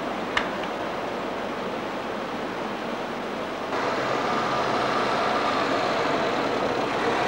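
Steady outdoor background noise with one sharp click about half a second in. Nearly four seconds in it steps up louder and carries the sound of a motor vehicle.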